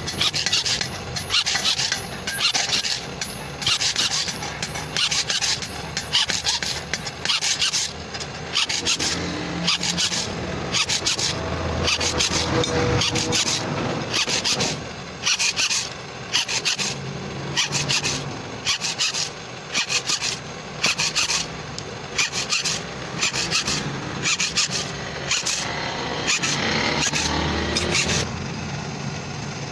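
Hand file rasping back and forth on the steel of a sickle blade, about two strokes a second with short pauses.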